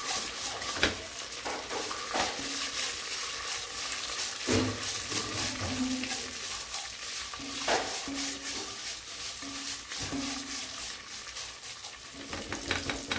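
Vermicelli frying in ghee in a metal pot with a steady sizzle, stirred and scraped with a silicone spatula, with a sharper scrape or knock of the spatula against the pot every couple of seconds.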